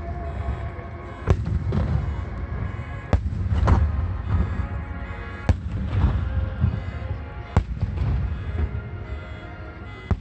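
Large aerial firework shells bursting in the Phoenix display: sharp cracks every second or two over a continuous low rumble of booms. Music plays underneath over loudspeakers.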